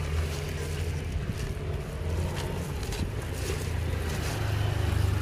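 Crispy banana chips being scooped by hand into a clear plastic bag, with faint crackling and plastic rustling, over a steady low rumble.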